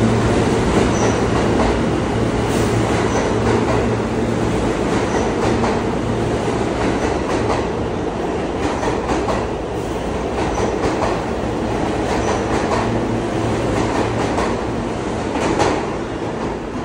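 New York City subway F train running along the platform and away into the tunnel: a steady rumble with a low hum, clicks of wheels over rail joints and a few brief faint squeals, easing slightly toward the end.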